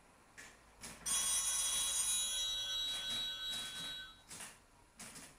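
Telephone ringing once for about three seconds, starting about a second in.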